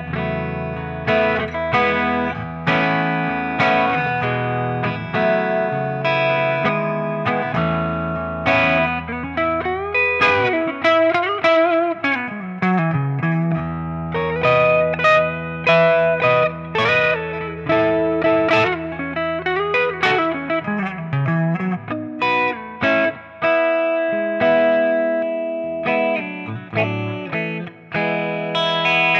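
A 1991 Gibson Les Paul Custom played through the clean channel of a 1983 Marshall JCM800 2210 100-watt valve head and Marshall cabinet, with the amp's reverb on: strummed chords and single-note runs with several bent notes. The tone is glassy and just breaking up a tiny bit, bass near 8, treble dimed and channel volume at 6.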